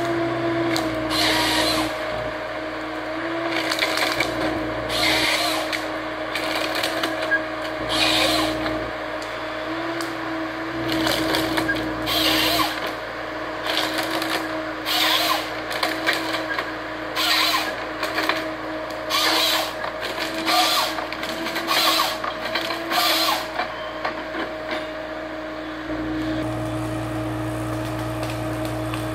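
Neuson 9002HV forestry harvester running with a steady engine and hydraulic whine while its harvester head processes a spruce stem, with repeated short bursts of cracking, splintering wood every second or two. The bursts stop a few seconds before the end, leaving the machine running on its own.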